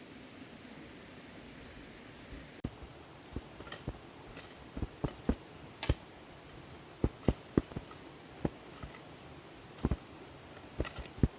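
Insects, likely crickets, chirring as one steady high-pitched drone, with irregular sharp knocks and taps starting a couple of seconds in, sometimes in quick pairs.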